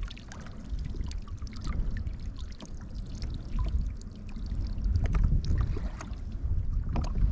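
Water lapping and trickling against a kayak hull, with scattered small drips and clicks over a low rumble.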